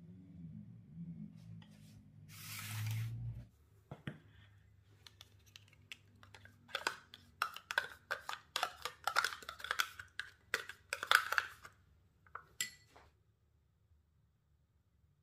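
A metal spoon scraping yogurt out of a plastic pot into a glass bowl: a dense run of clicks, scrapes and clinks against pot and bowl for several seconds past the middle. It starts with softer scraping of a silicone spatula spreading cake batter in a metal tin.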